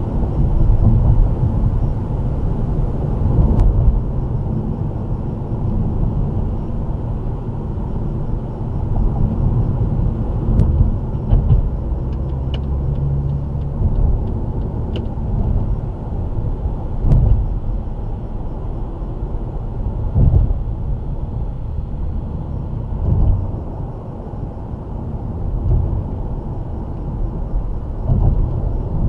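Mercedes-Benz W212 E-Class driving at city speed, heard from inside the cabin: a steady low rumble of tyre and engine noise, with a few short thumps from the road surface.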